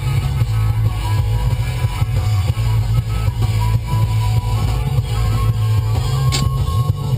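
Rock music with guitar and drums over a heavy, steady bass.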